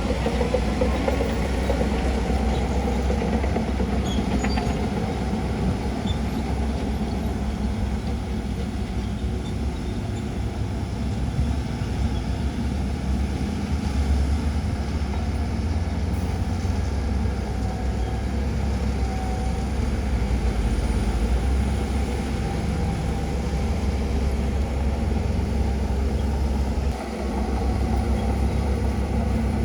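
Diesel engine of heavy earthmoving machinery running steadily with a low rumble, easing off briefly near the end.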